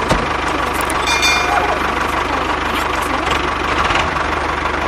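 Tractor engine running steadily with an even, fast low chugging.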